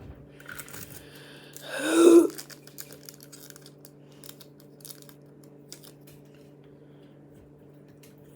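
Key lime pie slime mixed with foam beads being squished and poked by hand, making many small crackly clicks. There is one louder, pitched squelching sound about two seconds in.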